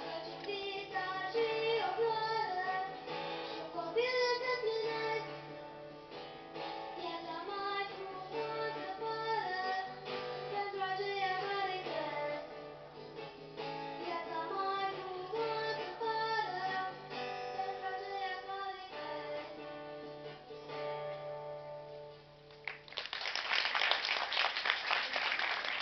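A young girl singing a folk song to her own acoustic guitar, picking and strumming steadily under the voice. Near the end the singing stops and applause breaks out.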